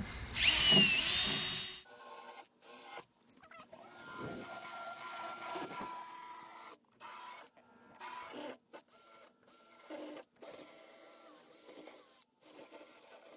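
Cordless drill spinning a 3/8-inch round burr bit, grinding the foam core out of the edge of a foam-cored bulkhead panel. It is loudest in the first second or two, its pitch wavering as the bit bites. After that it runs as a series of short bursts of steady motor whine, stopping and starting as the trigger is released and pressed again.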